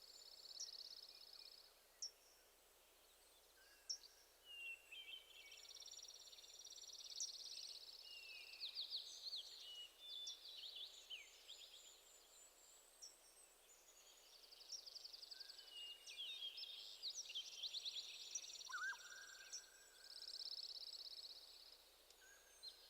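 Faint birdsong: birds chirping and trilling on and off, with quick high notes and rapid repeated trills.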